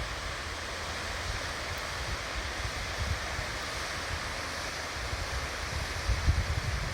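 Steady rushing of a waterfall running full with winter water. Wind buffets the microphone in low rumbling gusts near the end.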